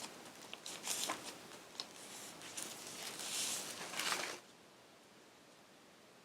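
Sheets of construction paper being handled and shuffled: rustling with a few light taps, stopping abruptly about four seconds in.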